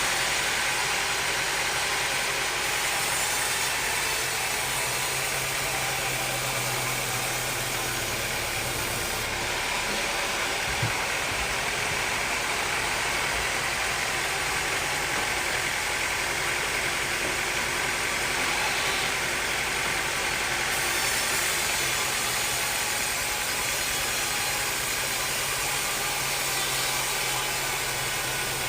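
Sawmill machinery running steadily, an even mechanical noise with one short knock about eleven seconds in.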